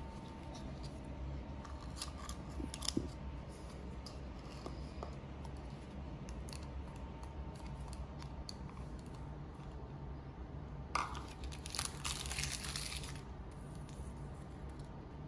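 Small plastic stickers being peeled and pressed onto a plastic toy capsule and a plush toy: light scattered clicks and rubbing, with a louder crackling tear lasting about two seconds from about 11 seconds in.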